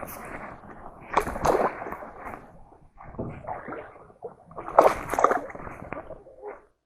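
Water splashing and sloshing as a hooked fish thrashes at the surface while being reeled in and landed, with two louder bursts of splashing, about a second in and about five seconds in.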